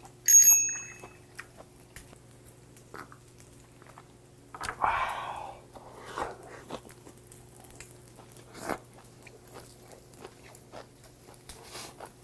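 Close-up sounds of a person eating grilled pork belly and kimchi: biting and chewing, heard as many small wet clicks, with one louder noisy burst about five seconds in. Just after the start there is a short ringing clink of a soju bottle against a glass. A steady low hum runs underneath.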